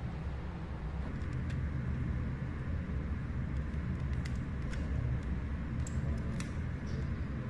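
Steady low rumble of a motor vehicle running nearby, with a few faint light clicks scattered through.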